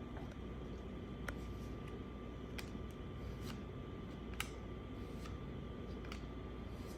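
Baseball trading cards being handled and flipped through, with a faint sharp click or snap about once a second over a steady low hum.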